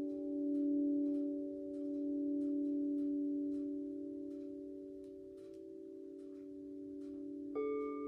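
Gorin henshō temple bells ringing on, a cluster of low, steady tones that waver gently as they slowly fade. Near the end another bell is struck, adding a higher ringing tone. Faint crackles from a wood fire run underneath.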